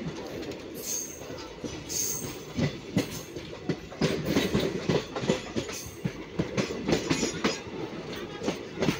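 Train running, heard from on board: a steady rumble with wheels clacking irregularly over rail joints, and a couple of brief high wheel squeals about one and two seconds in.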